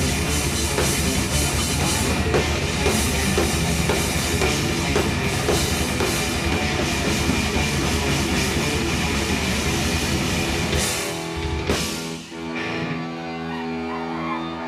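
Thrash metal band playing live, with pounding drums and distorted guitars. The song ends about eleven seconds in on a couple of hard hits, leaving held notes ringing on.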